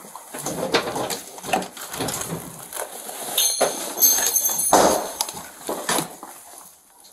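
Irregular knocks and rustling of officers' gear and clothing against a body-worn camera as they shift at a doorway, with a brief sharp clatter around the middle.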